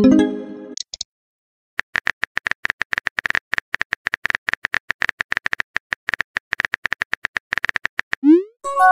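Simulated phone-keyboard typing clicks from a texting-chat app, a rapid, uneven run of taps lasting about six seconds. A message chime sounds at the start, and a short rising pop and another chime come near the end.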